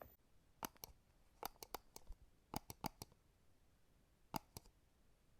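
Light, sharp clicks in small groups of two or three, with near silence between them.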